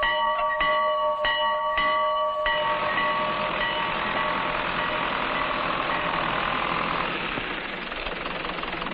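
A farm bell rung over and over, about every half second, for the first couple of seconds, calling the farmer in from the field. It then stops and gives way to a steady mechanical running noise like an engine.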